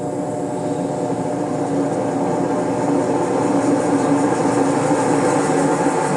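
Electrolux LTC 10 top-loading washing machine in its spin cycle, running with a loud, steady mechanical drone that grows slowly louder. The noise in spin was diagnosed as a faulty gearbox (transmission).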